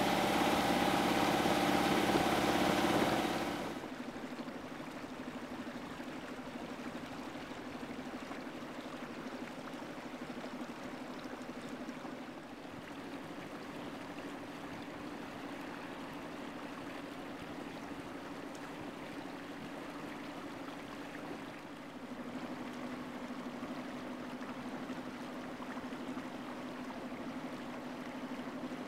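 Boat's engine running, throttled back about three and a half seconds in to a quieter steady hum, with a steady wash of water.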